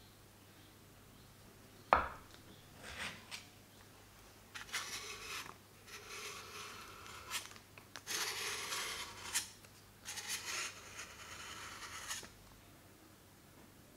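Knife blade scraping softened butter off its paper wrapper on a wooden cutting board. There is a sharp knock about two seconds in, then several long scraping strokes.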